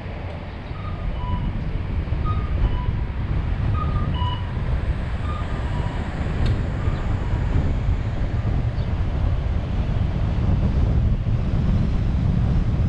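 Car driving with a steady low road and wind rumble that grows louder as it gathers speed. Over it an alternating two-tone electronic alarm dings about once a second and fades away about seven seconds in.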